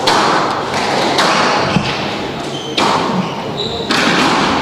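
Squash rally: a squash ball being struck by rackets and hitting the court walls, four sharp hits about a second apart, echoing in a large hall.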